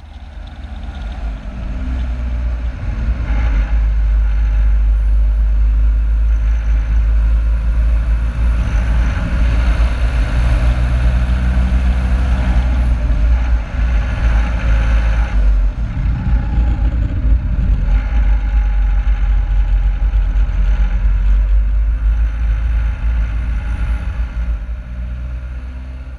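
Car driving along a road: a steady, loud low rumble of engine and road noise. It fades in at the start and fades out at the end.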